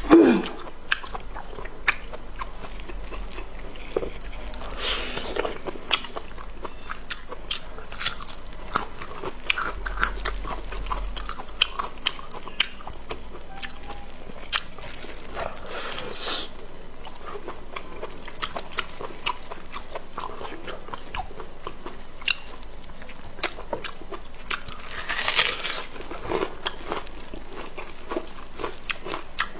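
Close-miked chewing of pig intestine: a steady run of short wet mouth clicks and smacks, with three longer, louder wet sounds spread through the stretch.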